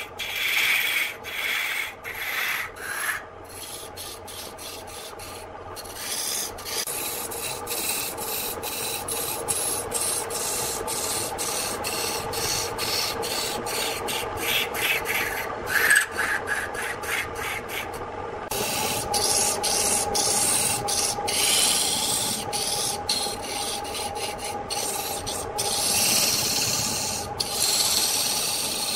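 Hand-held turning tool cutting a spinning wooden vase blank on a homemade electric wood lathe: a steady rasping scrape, with the lathe motor's hum underneath.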